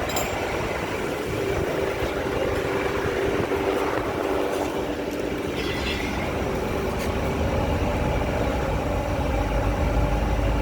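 Steady machine running noise with a faint continuous hum, the low rumble growing stronger near the end.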